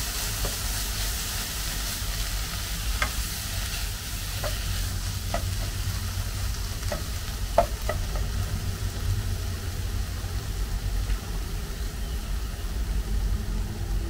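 Food frying in a pan, sizzling as it is stirred, with a utensil tapping against the pan now and then over a steady low rumble.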